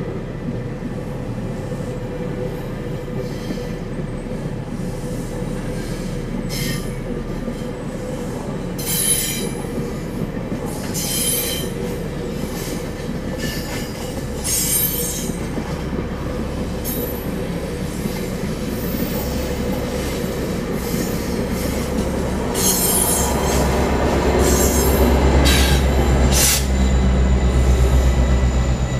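GO Transit bilevel passenger coaches rolling past over a level crossing, a steady wheel rumble broken by short bursts of high-pitched wheel squeal. Near the end the drone of the train's MP40PH-3C diesel locomotive grows louder as it passes.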